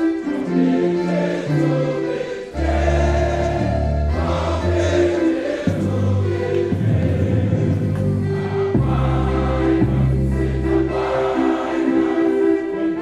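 A choir singing a school anthem over music, the voices holding long sustained notes. A strong low part comes in about two and a half seconds in.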